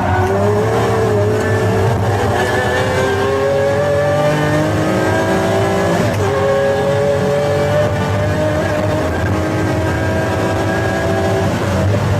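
Pagani Zonda F Clubsport's Mercedes-AMG V12 pulling hard, its pitch climbing steadily through one gear, dropping at a shift about halfway and climbing again, then easing off near the end.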